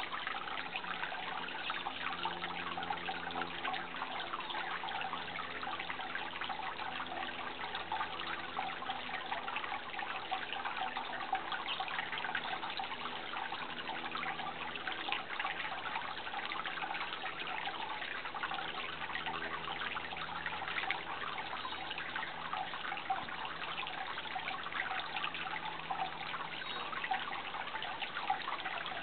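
Running water trickling and babbling steadily, like a small stream, with a faint low hum that comes and goes underneath.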